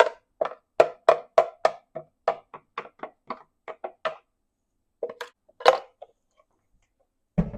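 Quick hard knocks of kitchenware, a blender jar and utensil tapped against a dish as thick oat batter is emptied out. They come about three a second for four seconds, then two more after a pause and one near the end.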